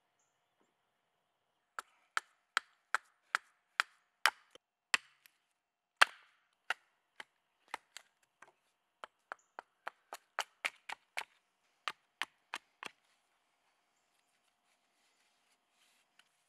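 Hatchet chopping wood on a stump chopping block: a run of about thirty sharp chops, two or three a second, starting about two seconds in and stopping a few seconds before the end.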